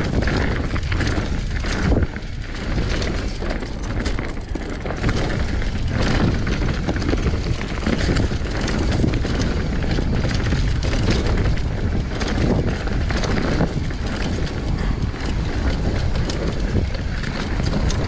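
Mountain bike riding down a dirt trail strewn with leaves: a continuous rush of tyres on loose dirt, broken by frequent knocks and rattles from the bike.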